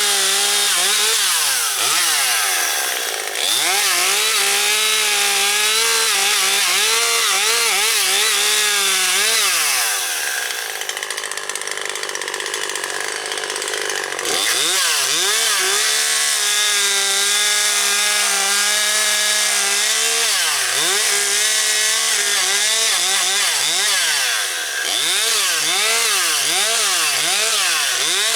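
Husqvarna 540XP Mark III two-stroke chainsaw running at high revs while cutting up storm-downed branches. It eases off for a few seconds about ten seconds in, then runs hard again.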